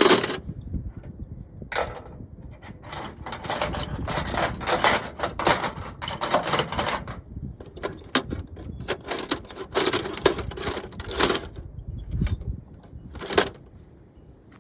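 Small metal parts and tools clinking and rattling as they are handled, in irregular clatters with a few separate clicks near the end; no engine running.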